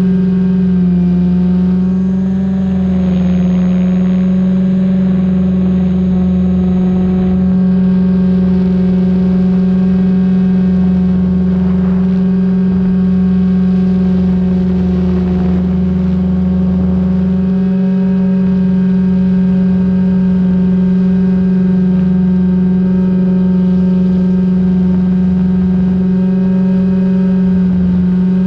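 SAB Goblin 500 RC helicopter in flight, heard from a camera on its tail boom: its rotors and motor give a steady hum that holds one pitch, with a low rumble that comes and goes underneath.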